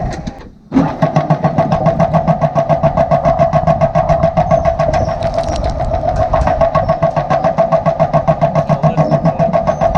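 An engine running steadily with a rapid, even pulse, starting about half a second in after a short break.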